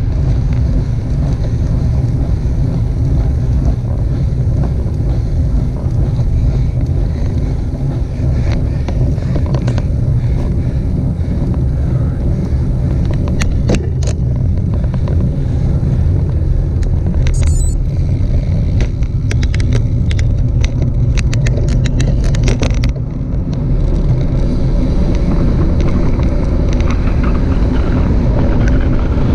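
Wind buffeting the microphone of a bicycle-mounted GoPro, over a steady deep rumble of tyres on asphalt while riding. Scattered sharp clicks and rattles from the bike come in between about 13 and 23 seconds in.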